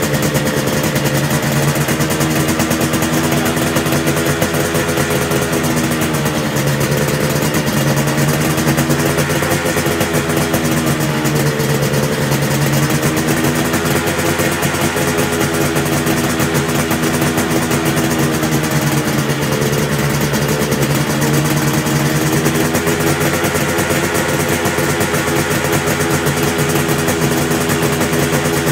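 Honda NSR250 two-stroke V-twin running through expansion-chamber exhausts at a steady idle, the revs sagging and picking back up a few times.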